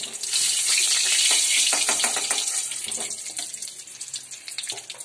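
Hot oil sizzling in a frying pan, swelling about a third of a second in and slowly dying away, with short clicks of a spatula against the pan.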